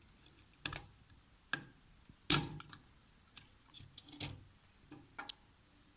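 A smoke alarm being handled: a series of irregular clicks and knocks, the loudest a little over two seconds in.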